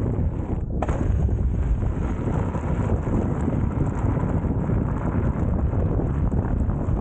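Wind buffeting the microphone of a camera moving along with an electric unicycle on a gravel trail: a steady, heavy low rumble, with a short click about a second in.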